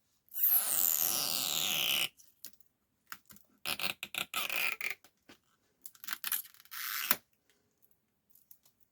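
Adhesive strips under a Samsung tablet battery being pulled out: a long tearing, squeaking pull whose pitch falls, then two shorter rough pulls.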